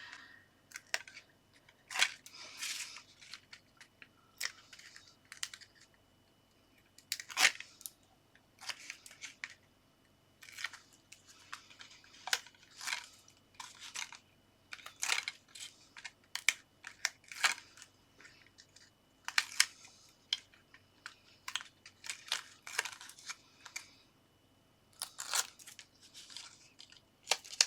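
Backing papers being peeled off double-sided foam pads on a card panel: irregular short crinkling and scratching sounds, about one or two a second, with a few sharper snaps.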